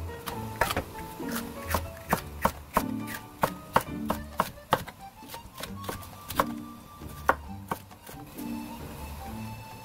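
Chef's knife slicing bell pepper into strips on a wooden cutting board: a run of sharp, irregular knocks, about two or three a second, as the blade hits the board. Background music plays underneath.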